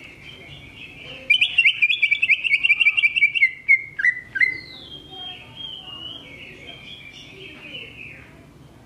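Green leafbird (cucak ijo) singing: soft warbling, then about a second in a loud, fast trill of sharp chattering notes lasting some two seconds. Two sharp falling calls come next, then softer falling warbled phrases.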